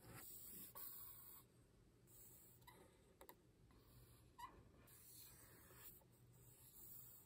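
Faint scratching of a felt-tip marker drawn across paper in several separate strokes, with a couple of small squeaks from the tip, one about two and a half seconds in and another a little past four seconds.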